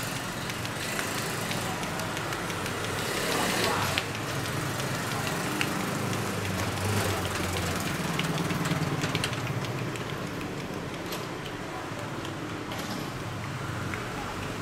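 Street traffic noise: vehicle engines going past, one swelling about three to four seconds in and another about seven to nine seconds in.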